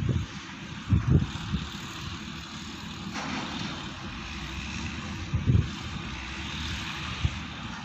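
SANY SY215C-9 excavator's Mitsubishi diesel engine running steadily while it digs, heard from a distance. A few short, low thumps stand out about a second in and again about two thirds of the way through.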